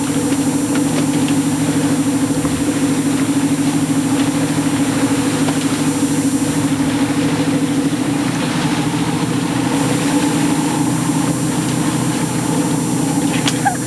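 Boat engine running steadily, heard on board, a constant low drone whose tone shifts slightly about eight seconds in.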